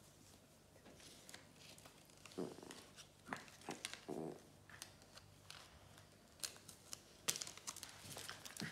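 Faint rustling and small clicks of a paper sticker's backing being peeled off by hand, in short scattered bursts.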